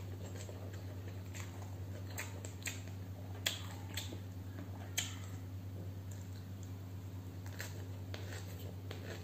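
Close-up eating by hand: fingers working rice on a steel plate and chewing crunchy food, heard as a scatter of sharp crisp clicks and crunches, the loudest about three and a half and five seconds in. A steady low electrical hum lies underneath.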